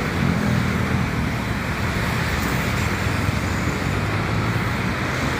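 Steady rumble and running noise of a moving commuter train, with a low hum and no sudden knocks or changes.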